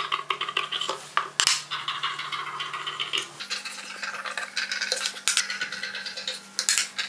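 Large steel tailor's shears cutting cotton fabric in quick, continuous snips, trimming the excess seam allowance from a stitched lining seam. The blades make a rapid, dense clicking.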